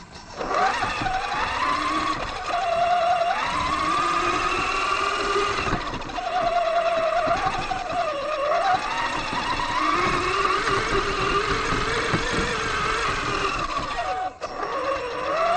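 Axial Yeti XL RC truck's electric motor and drivetrain whining as it drives over grass, the pitch rising and falling with the throttle, with rumble and knocks from the suspension over the bumpy ground.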